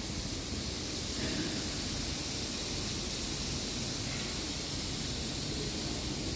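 Steady, even hiss with a low rumble underneath: constant background noise with no distinct events.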